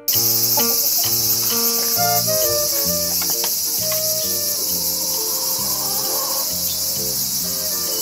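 A steady, loud, high-pitched insect chorus starts abruptly and runs on without change, with soft background music of stepping notes underneath.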